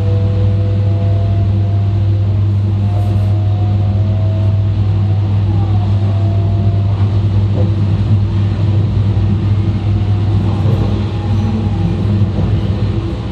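Running noise of an E2 series Shinkansen heard from the vestibule between cars: a steady, loud low rumble and hum, with faint whining tones that drift slightly in pitch.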